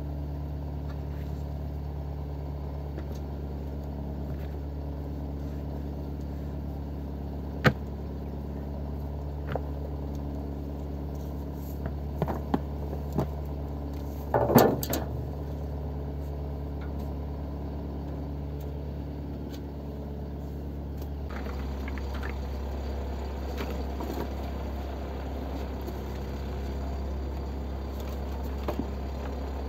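Steel motorboat's engine running steadily with an even drone. A few sharp knocks and clatters come near the middle, the loudest just before halfway.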